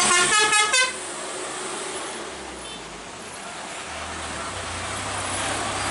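Road traffic: a vehicle horn sounds a quick series of about five short toots in the first second, then the noise drops to a quieter traffic hiss. A low engine rumble builds from about four seconds in.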